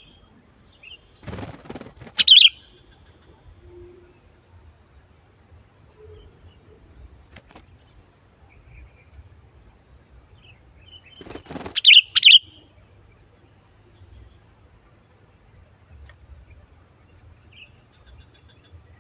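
Sooty-headed bulbul (kutilang) giving two short, loud, bright calls about ten seconds apart. Each call comes just after a brief rustling noise, with faint quiet stretches in between.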